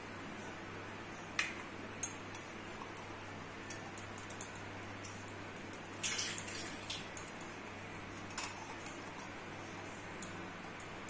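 Light clicks and clinks of a stainless-steel sev maker barrel and a silicone pastry brush as its inside is greased with oil, handled and set down on the counter. The busiest patch of clinks and brushing comes about six seconds in.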